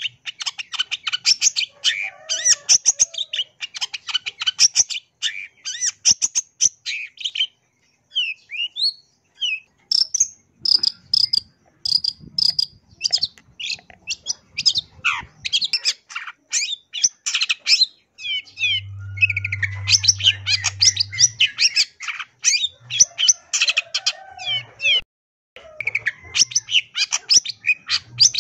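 Long-tailed shrike (cendet) singing a fast, chattering song full of mimicked phrases, in long runs broken by two short pauses.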